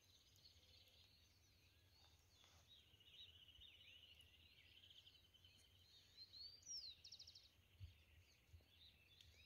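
Faint dawn chorus of several songbirds: overlapping chirps and whistled glides, with a long pulsed trill in the middle and a quick trill near the end.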